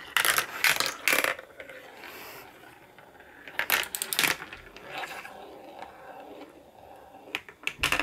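Marble rolling down a marble run track, clattering and clicking against the track in several bursts with quieter rolling between.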